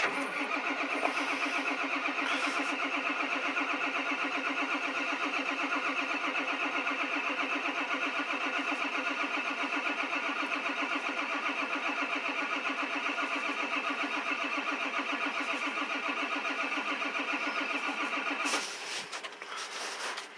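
Ford 7.3 L diesel being cranked by its starter, turning over slowly and evenly in a fast pulsing rhythm without catching, for about eighteen seconds before the starter stops. The slow cranking comes from a weak starter and batteries against stiff new oil on a cold morning, while the high-pressure oil pump builds pressure.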